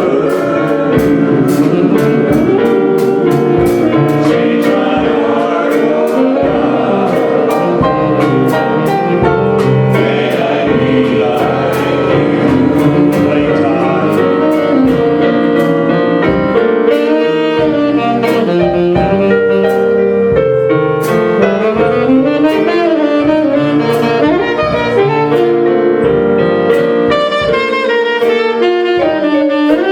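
Live church worship band playing an instrumental stretch of a slow hymn: a saxophone carries the melody over keyboard accompaniment and a steady light beat.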